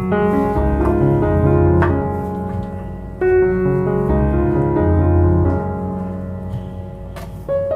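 Background piano music, calm and slow, with a low bass line and melody notes changing every second or so.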